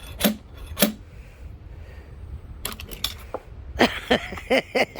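Sharp metal clicks of a nail puller snapping at nails stuck in dry elm, its jaws failing to get a hold. There are two clicks in the first second, then a quick cluster of clicks about three seconds in.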